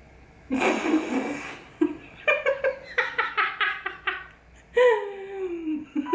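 Hearty laughter: a breathy burst about half a second in, then a quick run of rhythmic ha-ha pulses, ending in a long laugh that falls in pitch.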